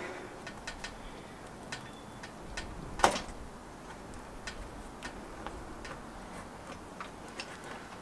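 Plastic tyre levers clicking and tapping against a small mobility-scooter wheel rim and tyre as the tyre is levered off, in scattered light ticks with one sharper click about three seconds in.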